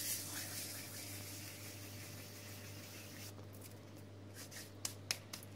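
Dried mint leaves crumbled between rubbing palms, a dry rustling that fades within the first second. Then faint soft sounds of fingers working a wet dough mixture in a bowl, with a few short sharp clicks about three to five seconds in.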